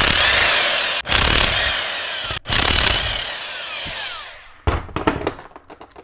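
Impact wrench spinning out the ring-gear bolts of a Dana 44 Powr-Lok differential, in three bursts, followed by a few sharp metal clicks about five seconds in as the bolts are handled.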